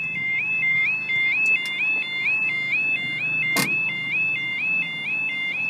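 Level crossing warning alarm sounding: a two-tone yodel that steps up and back down about two and a half times a second, warning that the crossing is closing for an approaching train. A single sharp click about three and a half seconds in.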